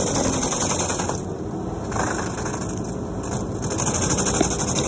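Vermeer FT300 stump grinder's cutter wheel grinding into a tree stump with the machine's engine running under load, a continuous dense grinding noise. The high, hissy part of the grinding eases off briefly twice, about a second and a half in and again past three seconds.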